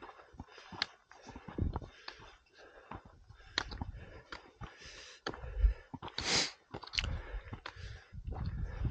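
Footsteps crunching and scuffing on a rocky gravel trail at an uneven walking pace, with low thumps on the microphone and a short hiss about six seconds in.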